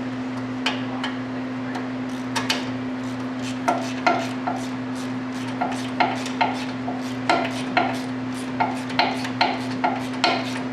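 Hand ratchet clicking in short strokes as the hub assembly's mounting bolts are run in and snugged up. A heater fan hums steadily underneath.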